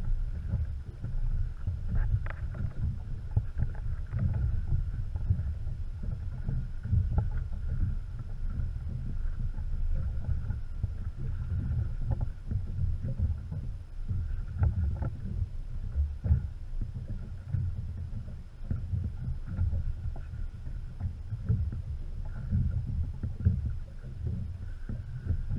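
Small boat drifting on choppy water: an uneven low rumble of wind and water against the hull, with a few light knocks.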